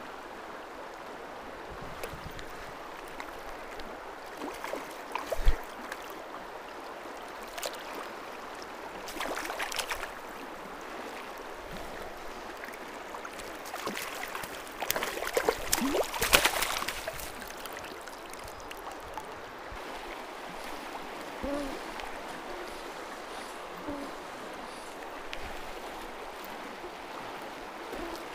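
River water rushing steadily, with a few louder splashy bursts in the middle, the loudest about two thirds of the way through.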